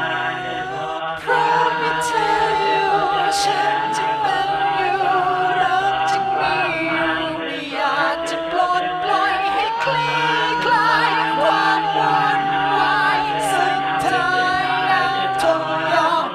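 Vocal music: layered voices singing long held, gliding notes in choir fashion over a low sustained drone.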